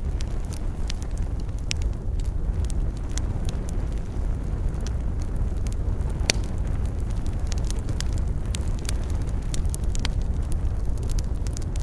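Wood campfire burning with a steady low roar and frequent sharp crackles and pops, one louder pop a little after the middle.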